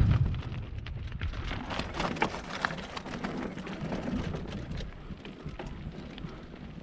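Mountain bike rolling down a loose, rocky trail: tyres crunching over stones and gravel with the bike clattering and rattling, over a low wind rumble on the helmet-camera microphone that is strongest at the start. The clatter thins out near the end as the trail turns to smoother dirt.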